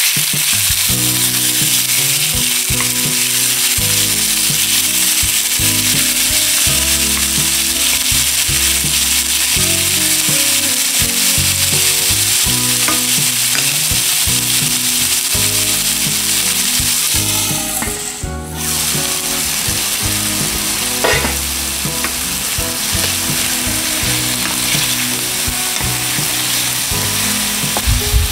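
Raw chicken breast strips frying in hot oil in a skillet: a steady, loud sizzle that briefly drops away about two-thirds of the way through. A wooden spoon stirs the pieces at times.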